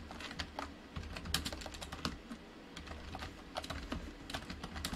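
Typing on a computer keyboard: irregular keystroke clicks in short runs with brief pauses.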